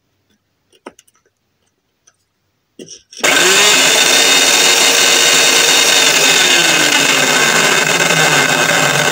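Electric hedge trimmer's motor starting by itself as it is plugged in, with a click just before, then running steadily at full speed. The motor runs while the blades stay still, a sign that the drive to the blades has failed.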